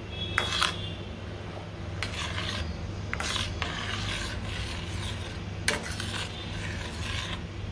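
Steel spatula stirring a thin tomato-based soup in a stainless steel pot, scraping along the pot's bottom and sides in several short strokes. One sharp clink of metal on metal comes about three-quarters of the way through.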